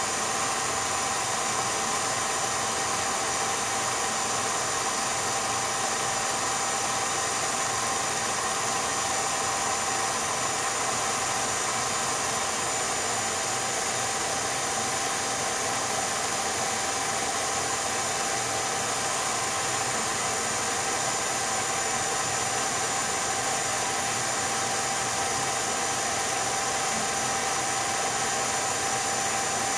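8mm film projector running: a steady mechanical whir and hiss with a few constant tones, unchanging.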